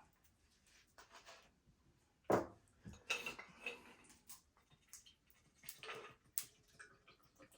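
Close-up eating and food handling: scattered sharp clicks and short crackling noises, irregularly spaced, the loudest about two and a half seconds in.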